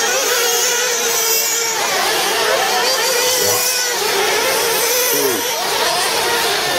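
Several 1/8-scale nitro RC buggy engines racing together, their high-pitched whine rising and falling as the cars throttle up and slow through the corners.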